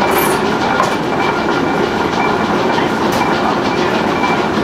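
1887 Eickhoff hot-bulb hit-and-miss stationary engine running, a steady mechanical clatter of rapid ticks and knocks.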